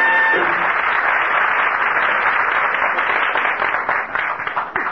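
Studio audience applauding, a dense steady clapping that thins out to scattered claps and dies away near the end.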